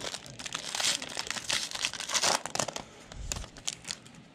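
Plastic wrapper of a pink camo Panini Prizm trading card pack crinkling and tearing as it is opened, in quick rustling bursts that die down after about three seconds.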